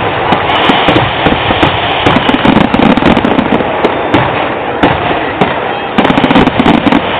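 Fireworks display: a dense barrage of aerial shells bursting, with many sharp bangs and crackles in quick succession over a continuous rumble.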